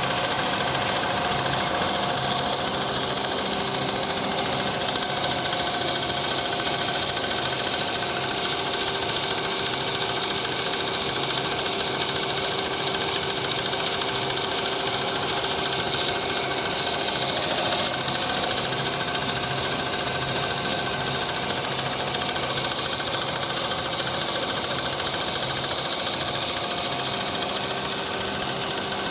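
Fried snack food making machinery running steadily: a loud, continuous rapid mechanical rattle with several constant tones over it.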